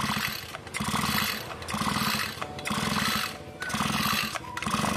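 Recoil starter of a Stihl brush cutter's two-stroke engine pulled about six times, roughly once a second, spinning the engine over freely with the spark plug out to check for spark.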